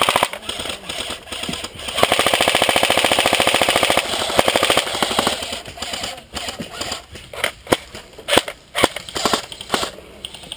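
Airsoft AK-pattern electric rifle firing a full-auto burst of about two seconds, a fast even rattle of shots that tails off softer. Scattered clicks and knocks follow as the rifle and its magazine are handled.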